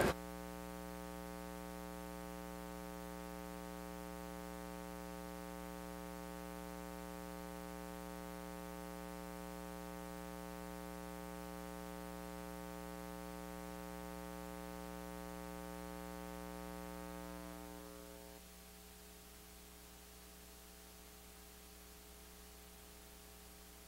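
Faint, steady electrical mains buzz in the sound system, a stack of even tones with no other sound over it; about eighteen seconds in it fades down to a fainter low hum.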